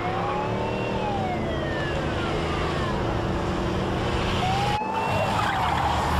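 Police car siren wailing, its pitch rising and then falling slowly twice, over steady car engine and road noise.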